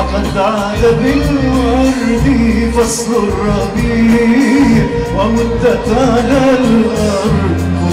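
Live Arabic orchestral music from a full ensemble with a string section, a winding melody over sustained bass notes.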